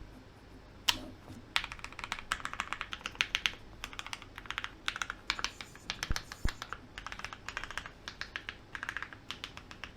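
Typing on a Vega mechanical keyboard with lubed and filmed Gateron Black Ink V1 linear switches in a full polycarbonate plate. A single keystroke comes about a second in, then fast runs of keystrokes with short pauses, and two deeper knocks around six seconds in.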